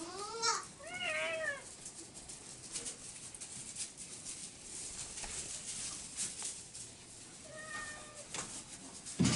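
An animal's short meow-like cries: two quick rising-and-falling calls at the start and a flatter, steadier call later, with faint rustling and clicking between them. A sudden loud thump comes near the end.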